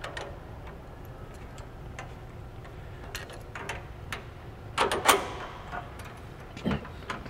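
Light metal clicks and clinks of a coilover shock, its spacer and tether being handled and fitted at the lower control arm, with a louder clatter about five seconds in. A low steady hum lies underneath.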